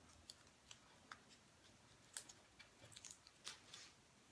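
Near silence broken by a few faint, scattered clicks and taps of hands handling a fiber-optic spin hammer's plastic head and cable.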